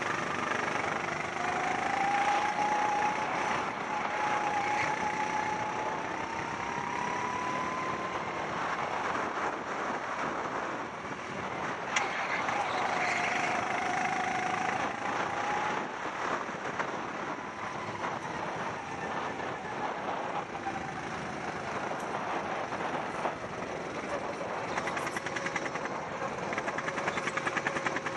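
Rental racing kart engine running hard on track, its pitch climbing over several seconds as the kart accelerates, dipping as it lifts for corners, then rising and falling again. A constant rush of noise runs underneath, with a few sharp clicks near the end.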